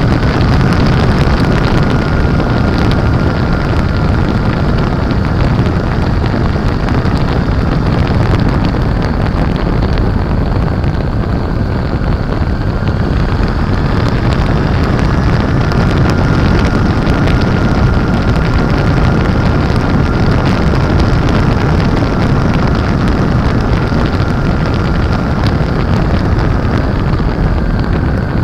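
Loud, steady wind buffeting on a motorcycle-mounted microphone at riding speed, over the running of a 2007 Honda Shadow Aero 750's V-twin engine.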